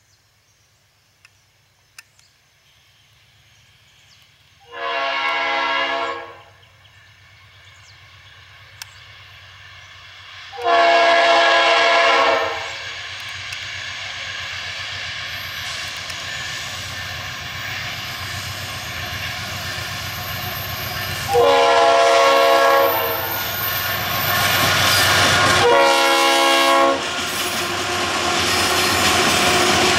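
Freight train led by two GE BB40-9W diesel-electric locomotives blowing its air horn four times as it nears a level crossing, the warning signal for the crossing. Three blasts of about a second and a half are followed by a longer last one. Under them the locomotives' rumble grows steadily louder, and wheel and rail noise rises near the end as they pass.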